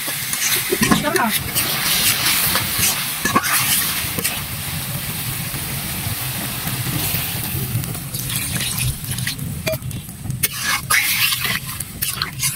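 Malabar spinach and potato sizzling in a hot pan with a steady hiss. From about eight seconds in, a metal spatula scrapes and clicks against the pan as the vegetables are stirred.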